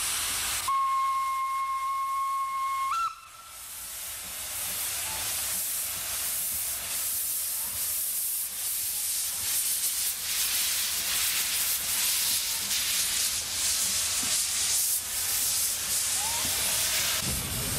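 Metre-gauge Mallet steam locomotive no. 403 sounding one steady whistle blast of about two and a half seconds that steps briefly up in pitch just before it cuts off. Then a steady hiss of steam from its open cylinder drain cocks as it passes with its train.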